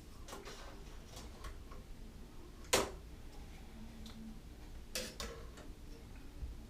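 Faint, scattered clicks and light taps from handling a tape measure while measuring, the sharpest about three seconds in and another about five seconds in.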